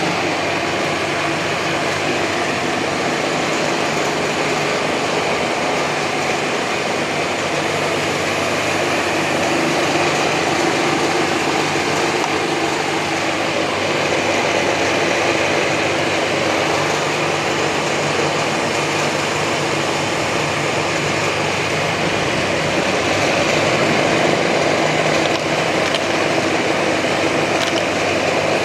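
MAS VR4 radial drilling machine running steadily: a continuous machine hum with several held tones, growing slightly louder partway through.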